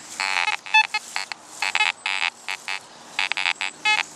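Fisher F44 metal detector's speaker sounding a quick run of short, low, buzzy tones as the coil sweeps over iron in the ground, with the iron volume turned up to its maximum of 20. A few higher-pitched beeps are mixed in.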